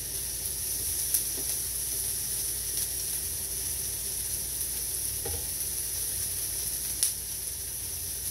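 Chopped peppers, onion and bacon sizzling in butter on a hot electric griddle, stirred with a spatula that clicks sharply against the plate about a second in and again near the end. An exhaust fan hums steadily underneath.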